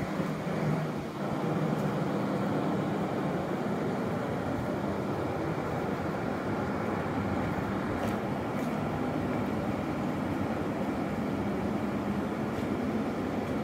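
A stopped electric train standing at the platform, its on-board equipment giving a steady low hum.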